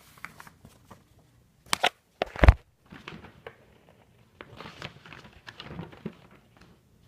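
Hands handling the fan's packaging and paper instruction manual: rustling and small clicks, with two sharp knocks close together about two seconds in, the second the loudest with a heavy thump.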